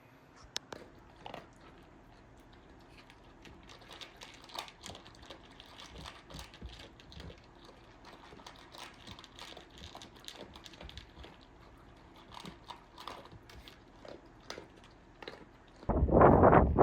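Faint scattered clicks and light knocks, irregular and small. About a second before the end, a loud rush of wind on the microphone begins.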